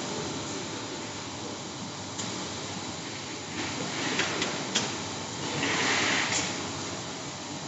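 Steady hiss of a glass cutting table's blower, which sucks the glass sheet down onto the table. About halfway through come a few sharp clicks of the metal straight-edge and cutter on the glass, then a hand glass cutter scores the sheet for about a second.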